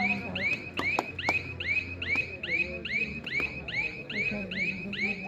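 A high chirp repeated evenly about three to four times a second, with a few sharp slaps or claps, one of them about a second in.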